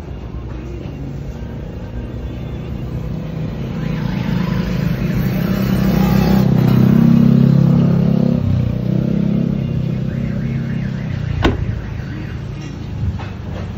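A motor vehicle engine running, growing louder to a peak about seven seconds in and then fading away, as a vehicle passing close by. A single sharp click comes near the end.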